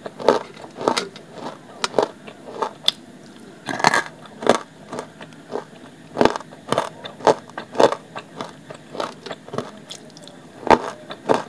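Hard chunks of dry clay being chewed close to the microphone: a string of sharp crunches at uneven spacing, with a fresh, louder bite near the end.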